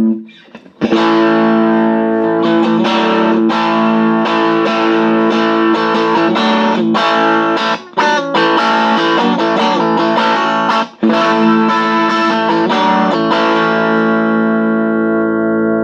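Strat electric guitar played loud through a 1971 Watkins Clubman amp, a single EL84 valve in Class A driving an Elac speaker, with the volume turned up into distortion. Struck chords and notes, two brief breaks, then a last chord left to ring.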